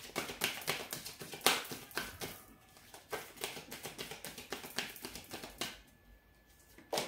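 A deck of oracle cards shuffled by hand: a quick run of papery slaps and flicks for about six seconds, then one more sharp tap just before the end.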